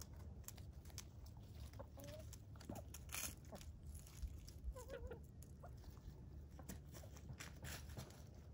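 Chickens foraging among kale and dry plant debris: many small crunches and clicks of pecking and scratching, with a few soft clucks, one about two seconds in and a wavering one about five seconds in, over a low steady rumble.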